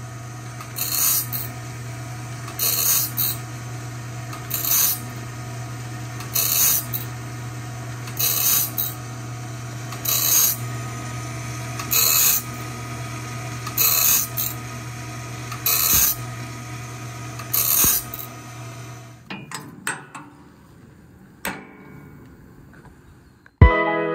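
Cat Claw band-saw blade sharpener running with a steady motor hum, its grinding wheel rasping on a tooth about every two seconds as it steps along the blade. The hum stops about 19 seconds in, followed by a few clicks, and music starts near the end.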